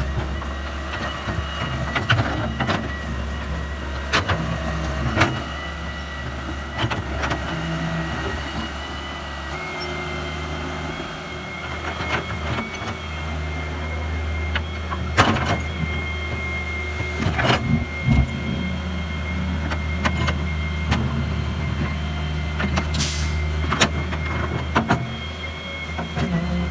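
Heavy diesel machinery engine running steadily, with a high whine that comes in about ten seconds in and scattered sharp knocks and clanks throughout.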